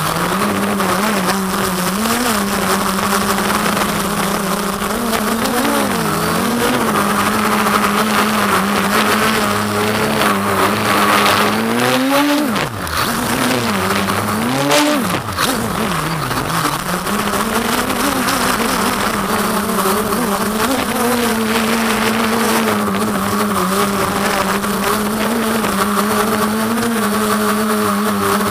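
Quadcopter's electric motors and propellers buzzing steadily as heard from the camera on board, the pitch wavering up and down with the throttle. About halfway through it swoops sharply up and down a few times.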